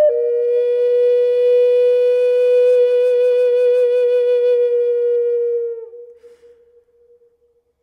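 Background flute music: one long held note with a slight vibrato that fades out about six seconds in, followed by near silence.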